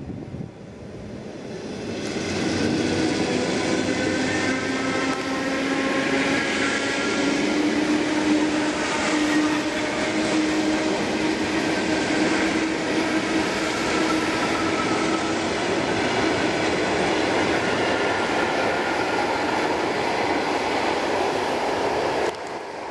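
ED4M electric multiple unit departing and running past close by: wheels on the rails and a whine from the traction motors in several tones that rise slightly in pitch. The sound builds over the first couple of seconds and holds loud. It drops suddenly to a quieter, more distant train near the end.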